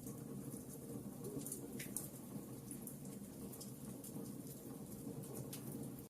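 Wood fire in a fireplace crackling faintly, with frequent small irregular pops and snaps over a low steady rush.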